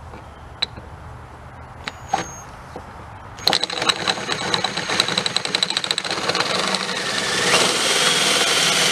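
A cordless drill boring into an aluminum piston with a 3/4-inch bit to take weight off it for balancing. After a few light clicks, the drill starts about three and a half seconds in and runs on with a rapid chattering as the bit cuts, growing louder toward the end.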